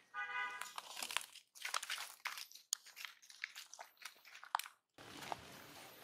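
Dry leaves crinkling and crunching in quick, irregular crackles as pig-tailed macaques move and handle leaves on the ground, opening with a short squeal from a monkey.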